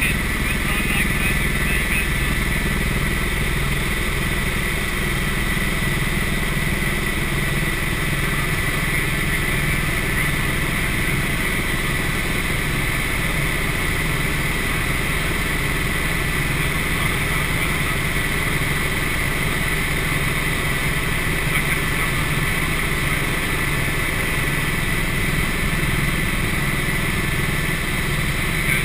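Helicopter in flight heard from inside the cabin: a steady engine-and-rotor drone with a constant high whine over it.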